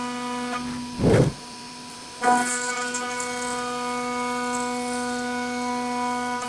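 CNC router spindle whining steadily with a 6 mm flat end mill, cutting profiles in 18 mm melamine-faced MDF. About a second in there is a short low rush, then a quieter moment. Just after two seconds the bit bites back in with a sharp start, and a hissy cutting noise returns over the whine.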